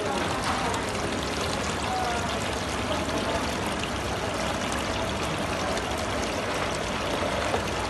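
Water pouring steadily from the flat spout of a decorative artificial-rock fountain and splashing into the basin below.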